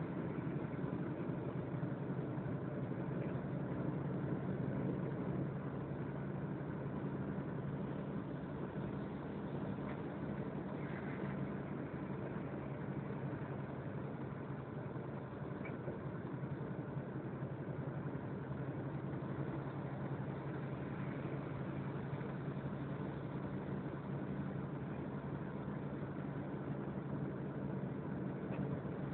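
Steady engine hum and road noise heard inside a vehicle's cab while driving at motorway speed.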